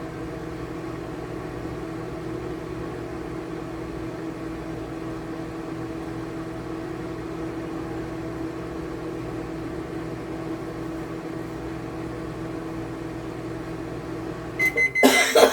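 Microwave oven running with a steady hum, then near the end a short beep as it finishes, followed by loud clattering as the door is opened.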